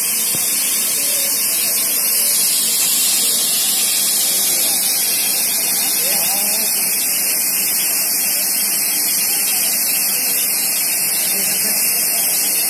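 Compressed air hissing loudly and steadily from a train's brake pipe vented by an alarm-chain pull, which holds the brakes on; faint voices underneath.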